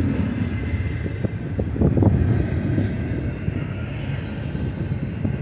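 Double-stack intermodal well cars rolling past on the mainline: a steady low rumble of steel wheels on rail, with a few knocks about two seconds in.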